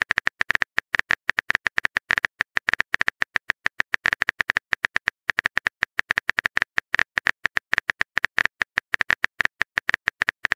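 Smartphone keyboard key clicks as a message is typed, a quick uneven run of taps at about eight or nine a second with a few brief pauses.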